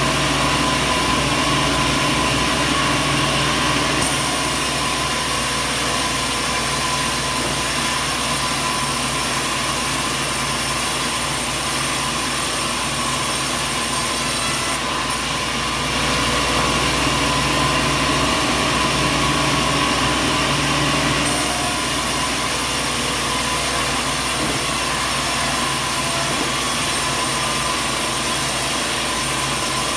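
Sawmill machinery running steadily, engine noise mixed with saw noise, the sound changing abruptly a few times, about four, fifteen and twenty-one seconds in.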